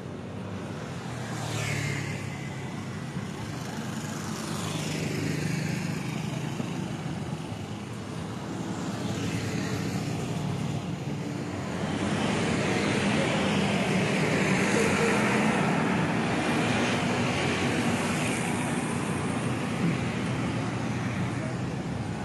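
City road traffic: a steady rush of passing cars and other motor vehicles, with single vehicles sweeping past now and then, louder in the second half.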